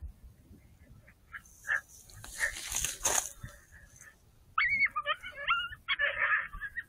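Coyote yipping and whining: high, wavering calls that start about four and a half seconds in. A brief rush of noise comes before them, around two to three seconds in.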